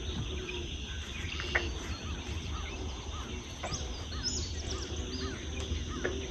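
Swamp ambience: small birds chirping and calling repeatedly, with a cluster of higher whistled notes near the middle and a steady low rumble underneath.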